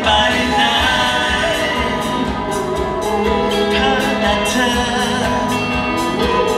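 Live band playing a pop song with a lead vocal, drums keeping a steady beat under the singing.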